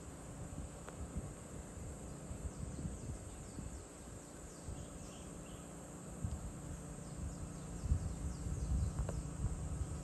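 Evening chorus of insects such as crickets, a steady high-pitched trill, with a run of short falling chirps in the middle, over a low, uneven rumble.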